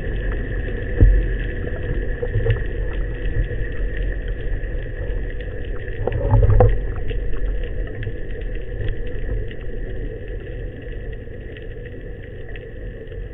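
Underwater sound picked up through the camera housing: a steady low rumble of water moving around it, with scattered faint clicks and crackles, a faint steady high hum, and two dull thumps, about a second in and about six seconds in.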